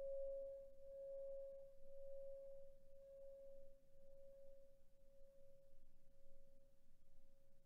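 Faint ring of a struck meditation bell: one clear, steady tone slowly dying away, its higher overtones fading out in the first few seconds.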